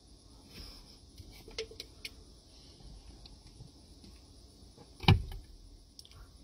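A man drinking from a can: a few faint swallowing clicks, then one sudden loud low thump about five seconds in. Steady insect chirring runs underneath.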